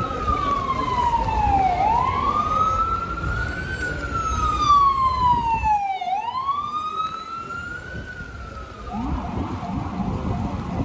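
Emergency vehicle siren on a slow wail, its pitch sliding down and back up twice before it stops about nine seconds in, over steady traffic noise.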